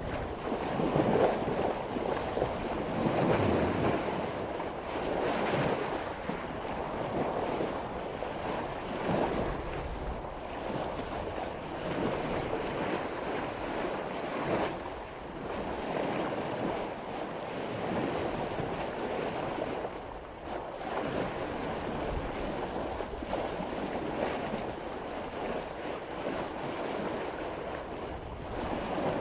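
Water rushing and splashing along the bow of a sailboat as it cuts through ocean swells at about 5 knots, the wash swelling and easing every few seconds with the waves. Wind buffets the microphone.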